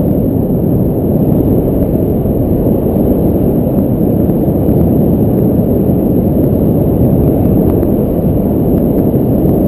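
Wind buffeting the camera's microphone in flight: a loud, steady low rumble that does not let up.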